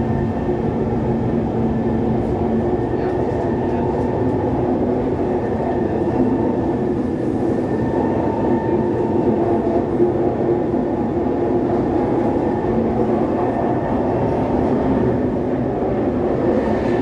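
Interior of a Kawasaki C151 metro train running through a tunnel: a steady rumble of wheels and running gear with a constant motor hum.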